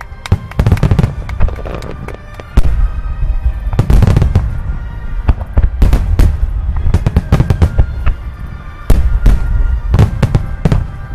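Aerial fireworks display: many shells bursting in quick, irregular succession, sharp bangs over a continuous deep rumble, with a sudden louder flurry about two and a half seconds in and another near nine seconds. Music plays underneath.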